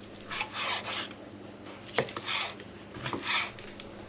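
Knife chopping grilled chicken on a cutting board: three short bunches of slicing strokes, with one sharp knock of the blade on the board about two seconds in.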